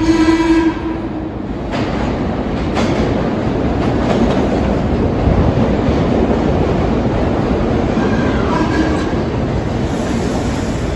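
Vintage R1-9 subway train entering the station: a short horn blast that ends under a second in, then the steady rumble and clickety-clack of the cars running past close by, with a brief fainter tone about eight seconds in.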